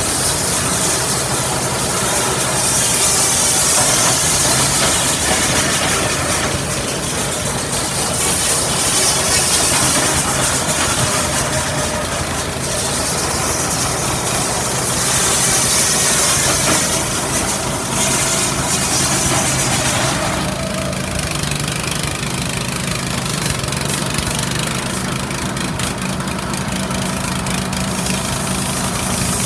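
Small petrol engine running steadily, with a high hiss that swells and fades every few seconds.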